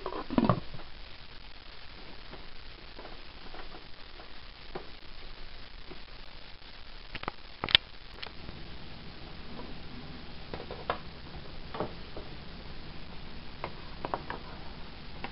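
Pot of beans and water heating on the stove toward a boil: a steady hiss with scattered light clicks and ticks, and one sharper click a little under eight seconds in.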